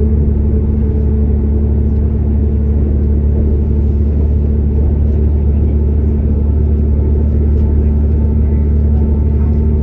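Steady, unchanging low drone and rumble inside a Class 195 CAF Civity diesel multiple unit running along at a constant pace: the underfloor diesel engine and ZF gearbox, with the rumble of the running gear on the track.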